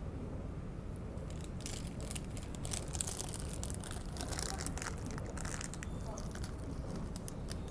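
Rustling and crackling handling noise on the microphone over a steady low rumble, the crackles coming thick from about a second and a half in until near the end.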